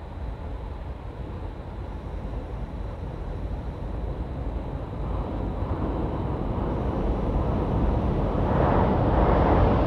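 Seoul Subway Line 1 electric train running, its noise growing steadily louder as it approaches and loudest near the end.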